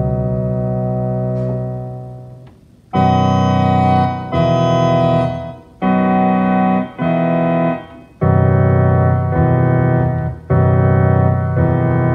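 Casio CZ-5000 phase-distortion synthesizer playing chords. A held chord dies away about two seconds in, then a run of about seven chords follows. The patch changes between them, so the tone shifts about eight seconds in.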